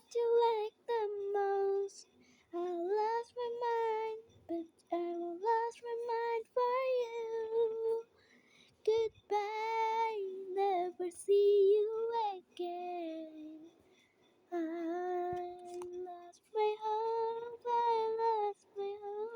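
A young, high voice singing solo without accompaniment, in short phrases of held notes with vibrato and brief pauses between them.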